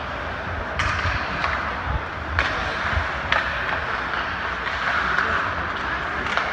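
Ice hockey play on an arena rink: a steady hiss of skate blades on the ice, broken by several sharp knocks of sticks and puck.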